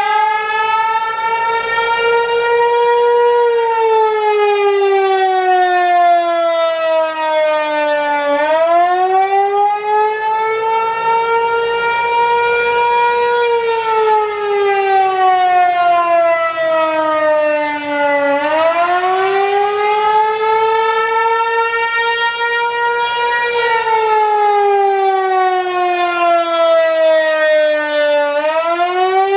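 Federal Signal Equinox outdoor warning siren sounding the attack signal during a test. Its tone repeatedly sweeps up quickly, climbs a little more, then slides slowly down, about once every ten seconds.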